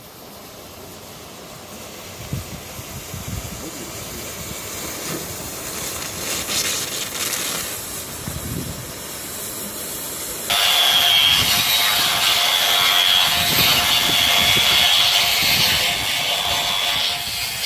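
Oxy-fuel cutting torch hissing as it burns through a steel beam. About ten seconds in it gives way abruptly to a louder angle grinder cutting steel, with a steady high whine.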